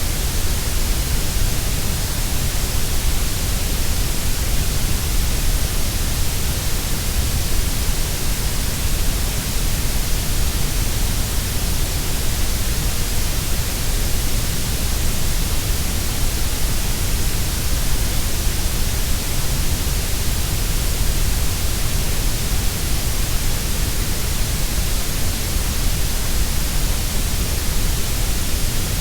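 Synthesised grey noise: a steady, unbroken hiss that is stronger in the deep bass and the high treble than in the middle.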